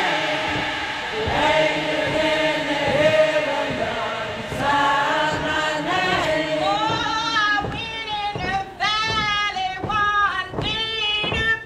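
Choir singing slow, long held notes. From about seven seconds in, a voice with strong vibrato comes to the fore.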